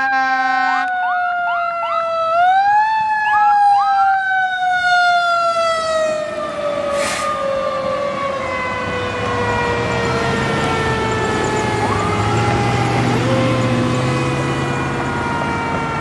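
A fire engine's mechanical Q siren coasting down in one long falling wail, briefly spun back up about two and a half seconds in. An air horn blast cuts off about a second in, short rising whoops from a second siren sound over the first few seconds, and the truck's engine is heard as it drives off in the second half.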